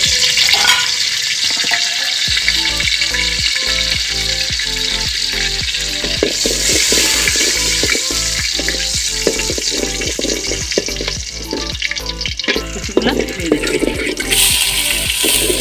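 Whole spices sizzling steadily in hot oil in an aluminium pot. Near the end, chopped onion is tipped in and the sizzle suddenly grows louder and brighter.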